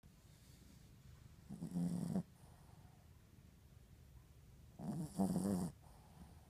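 A sleeping Yorkie-Poo snoring: two snores, each a little under a second long, about three seconds apart.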